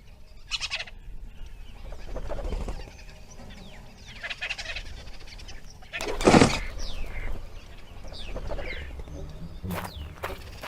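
Bird-like clucks and chirps, short calls with gliding pitch, with one louder call about six seconds in.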